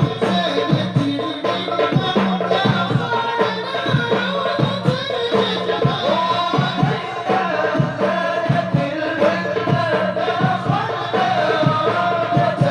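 Sholawat devotional singing by a group of voices over a steady rhythm of hand-struck drums.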